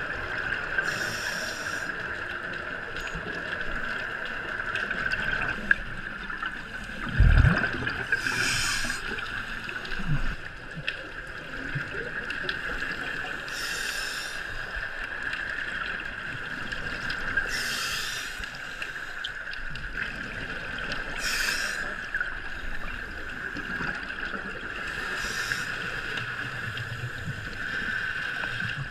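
A scuba diver breathing through a regulator underwater: six bursts of exhaled bubbles a few seconds apart over a steady hiss, with a dull low knock about seven seconds in.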